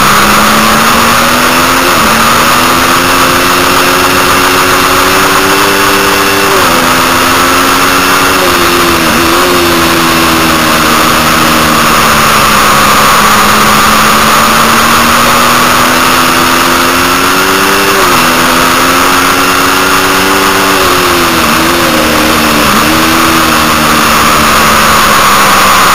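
Triumph Daytona 675's inline-three engine at full race pace, heard close up from the bike. Its note climbs for several seconds at a time and drops back sharply twice, with quick dips in between, over a loud steady rush of wind on the microphone.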